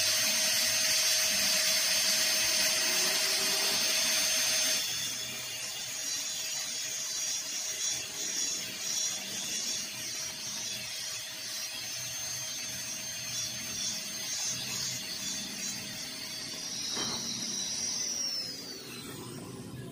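High-speed dental handpiece whining steadily as a fissure bur rounds the angles of a Class II cavity preparation in a plastic typodont tooth, louder for the first five seconds. Near the end the whine falls in pitch and stops as the turbine spins down.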